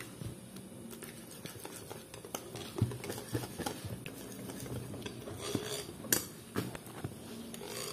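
Wire whisk beating thick bread batter in a ribbed glass bowl, the wires clicking and scraping against the glass at an irregular pace, with a few sharper knocks.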